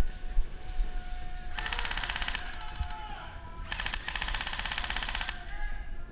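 Airsoft electric guns firing on full auto in two rapid bursts, a short one about one and a half seconds in and a longer one of over a second near four seconds in.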